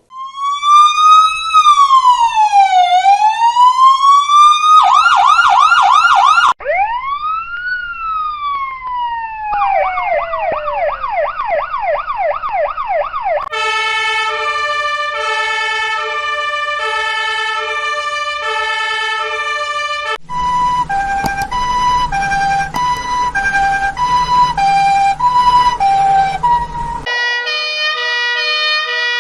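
A run of emergency-vehicle sirens one after another: first American-style electronic sirens, a slow rising-and-falling wail and a fast yelp, then from about halfway Austrian-style two-tone sirens alternating between a high and a low note. A low rumble sits under one of the two-tone sirens in the later part.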